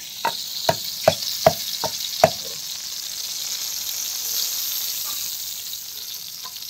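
A wooden pestle pounding in a mortar, about six knocks at two or three a second, stopping after a couple of seconds. Underneath is the steady sizzle of eggplants frying in oil on a flat iron tawa.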